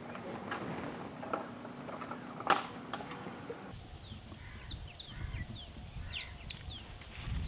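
A few scattered knocks and clicks, then, after an abrupt change in the background, birds chirping in many short, quickly falling high notes over a low rumble.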